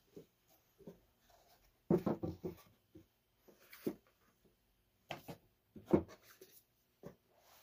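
Cardboard box and packaging being handled: irregular soft knocks, scrapes and rustles, loudest in clusters about two and six seconds in.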